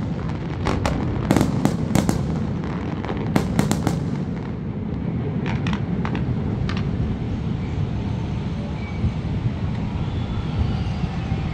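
Aerial fireworks bursting in a quick run of sharp bangs over the first few seconds, then a few scattered, fainter cracks as the display dies out, over a steady low rumble.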